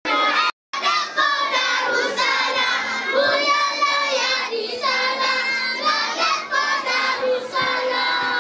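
Children singing together, with a brief dropout in the sound just after it begins.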